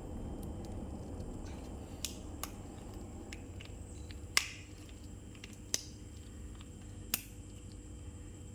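About five sharp clicks and taps from handling medicine packaging, spread out and the loudest about four seconds in, over a low steady hum.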